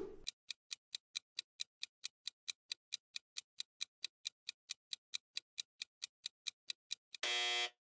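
Clock-ticking countdown sound effect: a steady run of ticks at about four to five a second while the quiz question waits for an answer, cut off near the end by a short buzzing tone.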